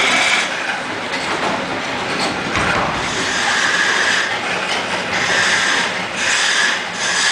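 A Barnes foot-powered woodworking machine running under the treadle, its flywheel and mechanism clattering. A hissing noise swells and fades about once a second.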